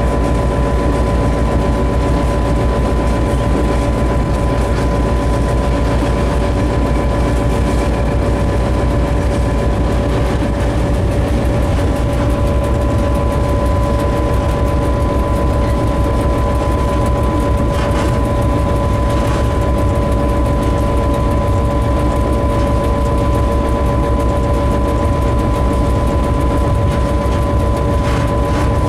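Diesel locomotive engine running steadily under way, heard from inside the cab: a continuous low rumble with a steady whine over it. A few short knocks come through near the middle and near the end.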